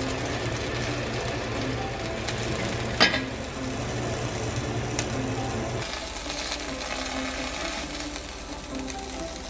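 Light background music over a steady low hum that stops about six seconds in, with one sharp knock about three seconds in.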